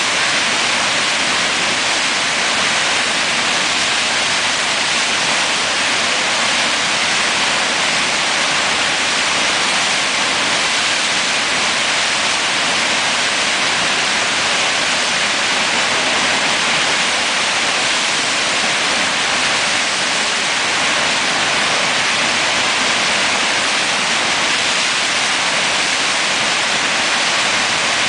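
Steady, loud rush of churning whitewater at the Eisbach's standing river wave, the water tumbling without letup.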